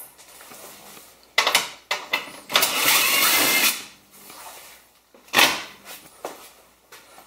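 A cordless drill running for about a second, with sharp knocks and clatter of tools and plastic parts being handled before and after.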